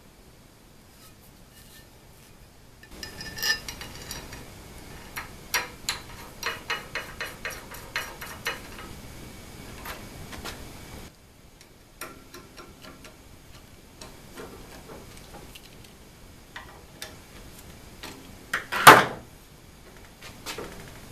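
Aluminium side plate and its hardware clinking and knocking against the aluminium extrusion frame and linear bearing blocks as the plate is fitted to the CNC router's X-axis: several seconds of quick light metal clicks, some at about three a second, then scattered quieter clicks and one loud knock near the end.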